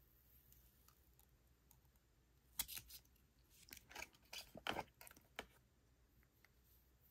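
Quiet handling of a GoPro Hero 12 action camera: short sharp plastic clicks and scrapes as it is turned over in the hands, a couple about two and a half seconds in and a cluster from about four to five and a half seconds in.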